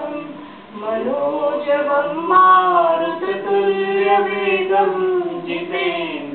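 A small group chanting a Sanskrit prayer verse together, unaccompanied, in slow, long-held notes, with a short break in the voices just under a second in.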